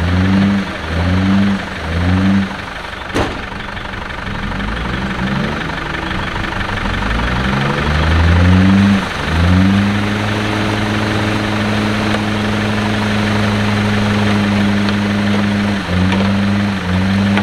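Land Rover Defender engine revving in short repeated blips, then climbing steadily in pitch and held at high revs for several seconds before the blips resume near the end. A single sharp knock about three seconds in.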